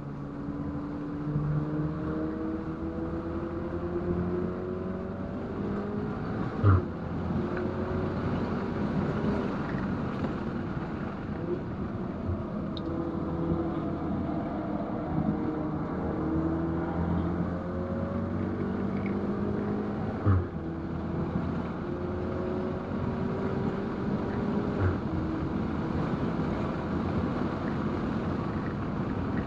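2019 VW Golf R's turbocharged 2.0-litre four-cylinder engine pulling hard, its pitch rising again and again as it revs up through the gears. Two brief loud thumps come through, one about 7 seconds in and one about 20 seconds in.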